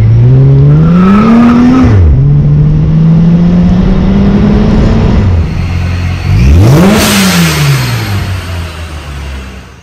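Supercharged V6 of a Dodge Charger accelerating hard, its engine note climbing steeply for the first two seconds, then pulling steadier at a lower pitch; about seven seconds in it revs sharply up and straight back down.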